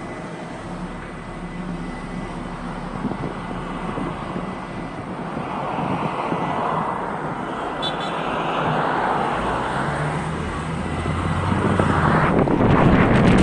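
Vehicle driving on a road: a steady roar of engine and tyre noise that grows gradually louder, swelling most near the end.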